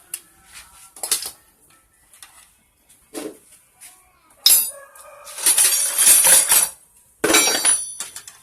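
Metal tools and engine parts clinking and clattering as they are handled and set down: a few scattered clicks, then three clatters in the second half, the last with a brief metallic ring.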